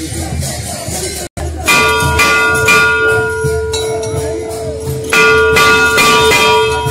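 Large metal temple bell struck twice, about three and a half seconds apart. Each strike rings on with a steady low tone and higher overtones over crowd chatter. Before a brief cut in the sound, festival drumming is heard.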